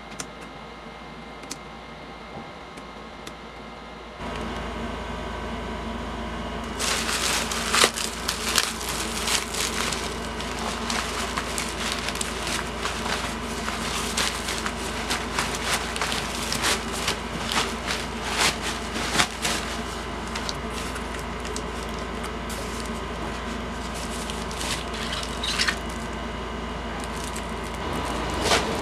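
Bubble wrap and plastic packaging crinkling and crackling irregularly as a parcel is unwrapped by hand, over a steady low hum. At first there are a few light clicks of keyboard keys being typed.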